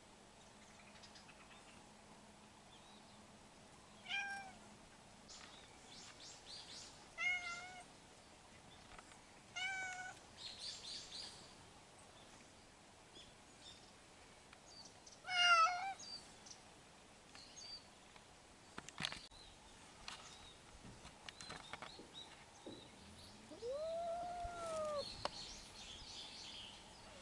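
Cat meowing: four short meows spread over the first half, the loudest about halfway through, then one longer meow near the end that rises and falls in pitch.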